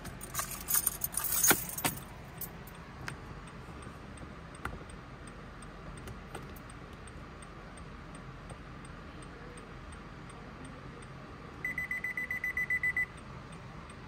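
A key fob and keys rattling and clicking against the push-start button for the first two seconds, then a quiet car cabin with a few faint ticks. Near the end, a rapid electronic beep sounds, about nine short pulses a second for just over a second.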